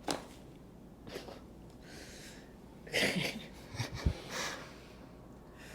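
A person breathing in and out, several noisy breaths and exhales during a chiropractic adjustment, the loudest about three seconds in. A short sharp click comes right at the start, and a couple of low knocks about four seconds in.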